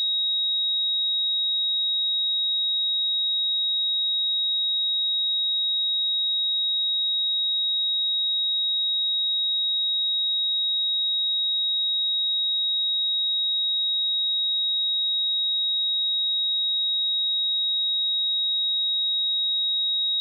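A single steady 3792 Hz sine-wave test tone, a pure high-pitched whistle held at constant pitch and level, for checking speakers or headphones.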